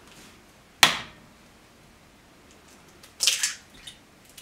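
An egg knocked once against the rim of a glass measuring jug: a single sharp crack about a second in. About two seconds later comes a short crackle as the shell is pulled apart over the jug.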